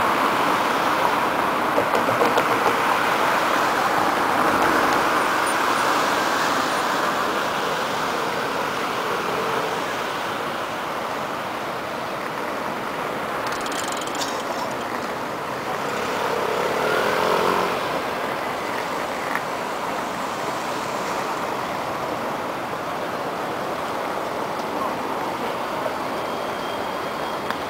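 Busy city street traffic noise: a steady rush of cars passing, with a swell as one vehicle goes by a little past the middle and a short high squeak about halfway through.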